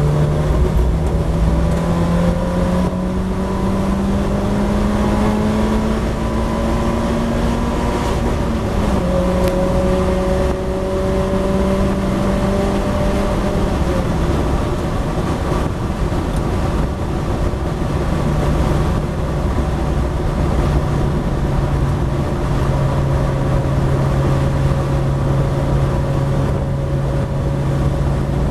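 Mazda MX-5 race car's four-cylinder engine heard from the cockpit under full throttle: the pitch climbs, drops with an upshift about eight seconds in, climbs again, then falls as the driver lifts off about fourteen seconds in, and runs steadier at a lower pitch for the rest. Wind and road noise run underneath.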